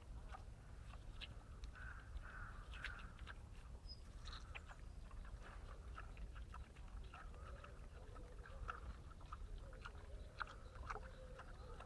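Wild boar chewing and crunching food, a continuous run of short, sharp cracking bites and smacks.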